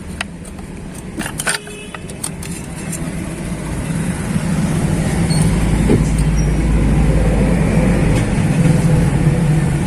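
A few sharp metallic clicks and knocks as parts are handled, then a motor vehicle's engine running close by rises in level and holds steady as a low hum.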